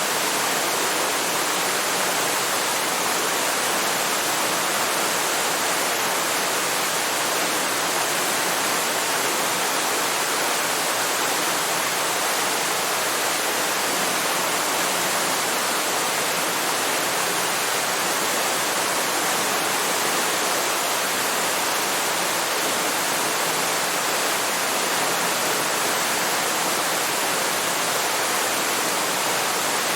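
Waterfall: falling water in a steady, even rush, unchanging throughout.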